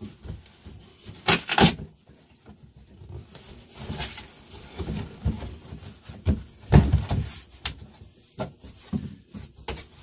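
Cardboard box being torn open by hand: a series of rips and scrapes as the top is pulled apart and the flaps folded back. There are two sharp rips about a second and a half in, and the loudest tearing falls just past the middle.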